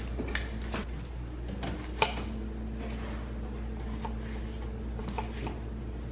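Kitchen utensils tapping and clicking during food prep: a spoon against a bowl and a knife slicing strawberries, a few sharp taps with the loudest about two seconds in. Under them runs a steady low hum.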